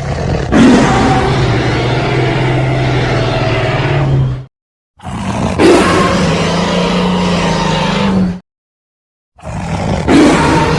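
Dinosaur roar sound effect: two long roars of about four seconds each, separated by a short silence, with a third roar beginning near the end. Each roar has a low steady pitch under a rough, noisy layer.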